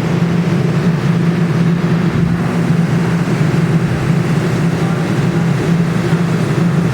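Steady low mechanical hum from a claw machine, unchanging throughout, with a constant noisy haze over it.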